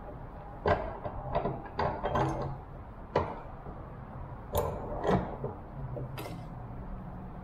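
Irregular metal clinks and knocks, about eight in all, of a crescent wrench working a small metal bracket clamped in a bench vise as the bracket is bent a little further.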